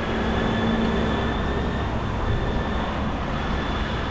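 Street traffic and road noise heard from a moving bicycle in a city: a steady rumble with a low engine-like hum for the first second or so.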